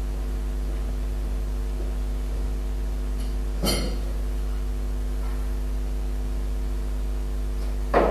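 Steady electrical mains hum on the recording, with a short clink about three and a half seconds in and a thump near the end.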